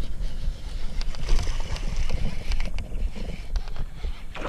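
Steady low rumble of wind and handling noise on the camera microphone. Over it come scattered clicks and knocks from the baitcasting reel, rod and kayak as a hooked largemouth bass is reeled in.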